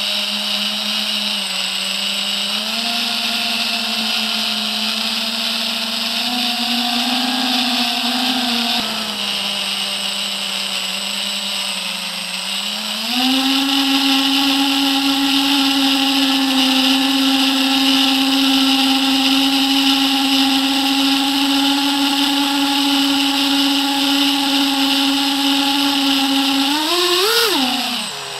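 FPV quadcopter's brushless motors and propellers whining with a high hiss, heard from the onboard camera. The hum is steady, steps up in pitch about halfway through, then swoops quickly up and back down near the end and falls away.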